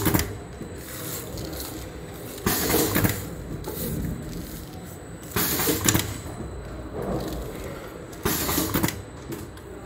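KL-160YS vertical sachet packing machine for liquids running through its cycle: a noisy mechanical burst about every three seconds, three times, over a steady low hum.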